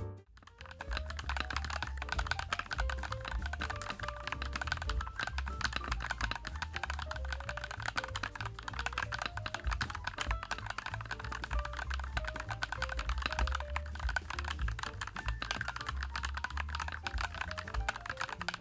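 Rapid, continuous typing on a YUNZII x Coolkiller CK75, a full-acrylic, gasket-mounted 75% mechanical keyboard with KSA-profile keycaps: a dense run of key clicks.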